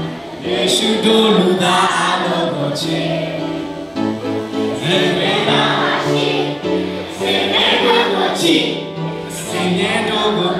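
A large group of children singing a song together over backing music, the kind of action song they act out with their hands.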